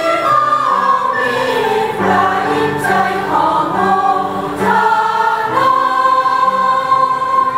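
Hymn music: a recorder playing the melody over keyboard accompaniment, with a choir-like blend of voices, settling on a long held high note in the second half.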